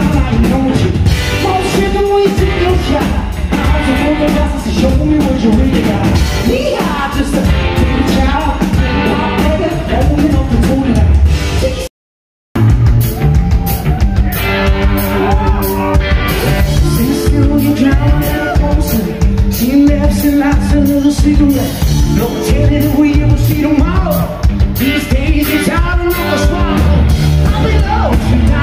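Live rock band playing loud, with a singer, electric guitar and drum kit. The sound drops out completely for about half a second around twelve seconds in, then the music carries on.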